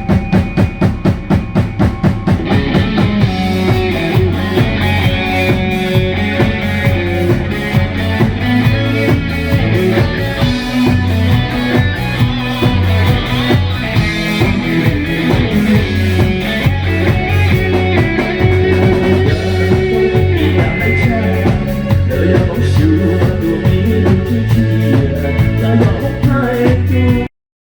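A live rock band playing: a fast, steady drum beat, with guitar and the rest of the band coming in about two seconds in. The sound cuts off suddenly near the end.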